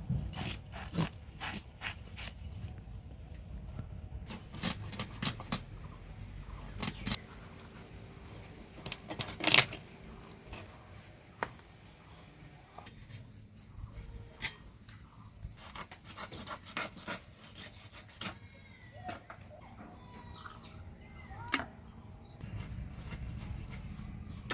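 A katla fish being cut up with a blade: irregular sharp clicks and scrapes, some in quick clusters, the loudest about halfway through.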